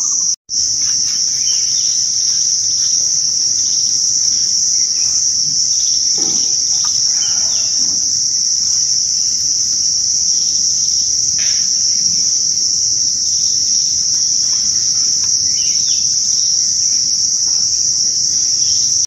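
A chorus of insects giving one steady, high-pitched drone, breaking off for a moment about half a second in.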